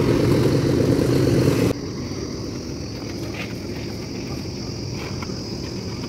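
A concrete mixer's engine running loudly with a fast, even pulse, cut off abruptly about two seconds in. After it, a lower steady outdoor background with the high, constant chirring of insects.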